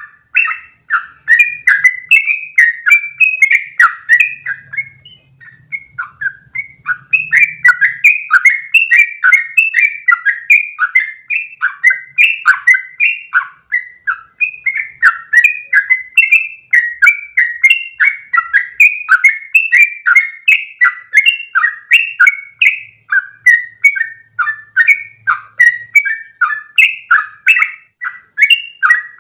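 Yellow-vented bulbul (trucukan) singing a long, fast run of bubbly chirping notes, about three or four a second. The song breaks off briefly about five seconds in, then resumes and runs on without a break.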